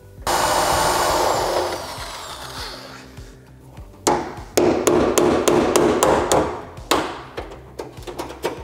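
Hammer striking steel tools against car-body sheet metal while separating a spot-welded panel. A single loud blow rings out and fades, then from about four seconds in a quick run of sharp hammer strikes drives a chisel into the seam.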